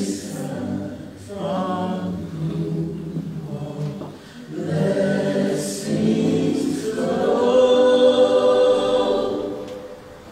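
A church choir singing in slow, sustained phrases, with brief breaths between phrases about one and four seconds in. It swells to its loudest towards the end of the last phrase, then fades.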